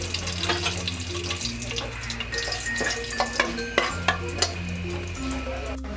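Whole spices (bay leaves, cardamom and cinnamon) sizzling and crackling in hot oil in a pot, with a spatula stirring them in the second half. Soft background music with a low bass line runs underneath.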